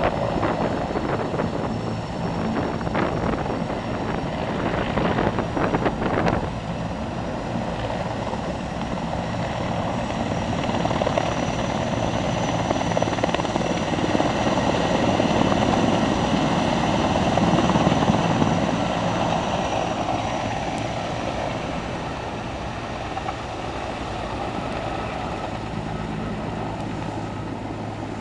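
Erickson S-64 Air-Crane heavy-lift helicopter running, with the chop of its rotor blades and a high turbine whine, as it lifts off and hovers. The sound swells to its loudest about two-thirds of the way through, then eases off as the aircraft moves away.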